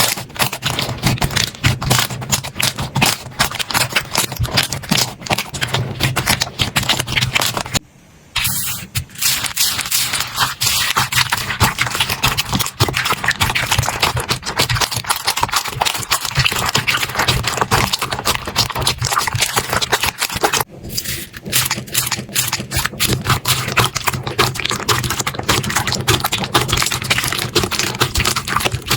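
Slime being squeezed and worked by hands, a dense run of crackling, popping clicks that breaks off briefly twice.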